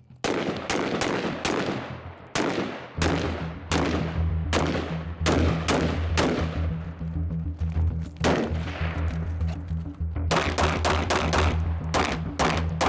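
Semi-automatic gunfire in a timed drill: a steady string of single aimed shots, about two a second, each with a ringing tail, quickening into a faster run of shots near the end.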